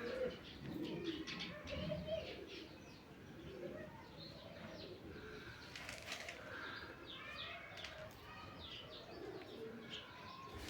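Domestic pigeons cooing in a loft, with higher bird chirps mixed in and a short sharp noise about six seconds in.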